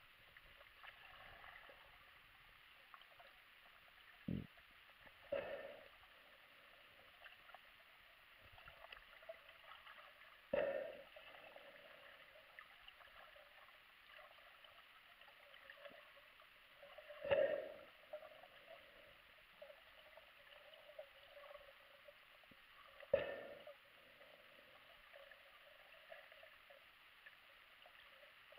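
Muffled underwater sound picked up by an action camera in its waterproof housing: a faint steady hiss with about five dull knocks spread through it, the two loudest in the second half.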